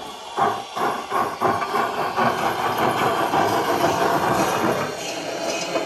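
Sound system of a KM1 model BR 05 steam locomotive playing sampled steam exhaust chuffs from its cylinders as the model runs. The beats are separate at first, quicken into rapid continuous chuffing, and ease off near the end.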